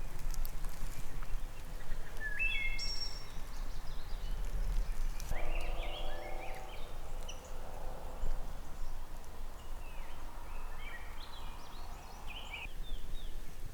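Wild birds calling outdoors: many short chirps and rising notes repeat throughout, with a lower, harsher call from about five to eight seconds in, over a steady low rumble.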